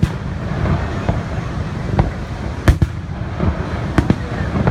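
Fireworks exploding: several sharp bangs at irregular intervals, some in quick pairs, over a steady low rumble.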